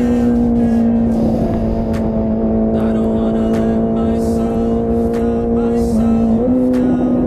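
Honda CBR650R's inline-four engine running through an IXIL full-system exhaust with the dB killer removed, holding a steady high-revving note while riding. About six seconds in the engine note dips briefly, then jumps back up.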